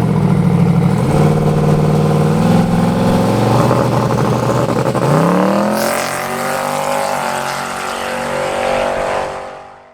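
Car engine running under load, its pitch climbing sharply about five seconds in, then holding high and fading away.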